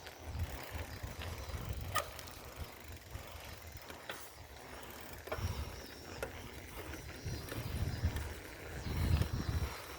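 Wind rumbling on the microphone while riding a bicycle, with a few sharp clicks or rattles from the bike.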